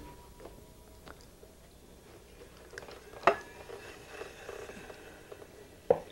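Wet clay squelching under a potter's hands as it is centred on a turning wheel, with two sharp smacks, about three seconds in and near the end.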